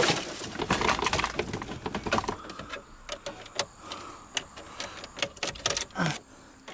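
Irregular clicks and light jangling of an ignition key and keychain in a car's ignition switch, with no starter cranking: the clutch pedal has not been pressed in.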